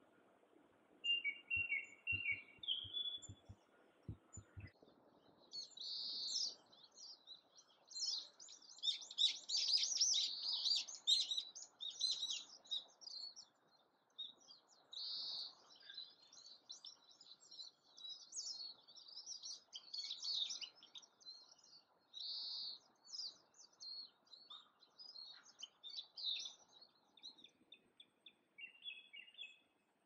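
Small songbirds calling and singing: a few short high calls in the first seconds, then bursts of fast, high twittering song, densest about eight to twelve seconds in and going on in short phrases almost to the end.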